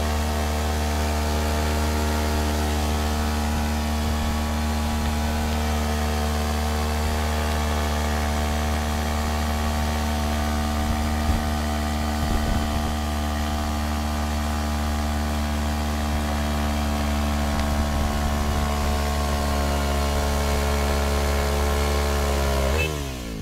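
Quad fitted with a swapped-in Kawasaki ER-6 650 cc parallel-twin engine, held at steady revs during a stationary burnout while the rear tyres spin and smoke. Near the end the revs drop quickly.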